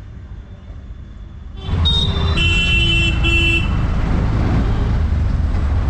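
Quiet at first, then from under two seconds in the steady engine and road rumble of a moving auto-rickshaw, heard from inside its open cabin. A vehicle horn gives three short toots in quick succession soon after.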